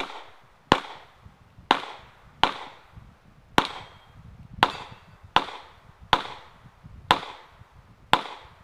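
Pistol fired in a steady string of about ten single shots, roughly one a second, each trailing off with a short echo.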